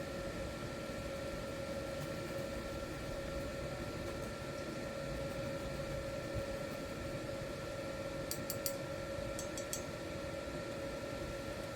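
Steady machine hum with a constant tone over a noisy background, and a few faint sharp ticks about two-thirds of the way through.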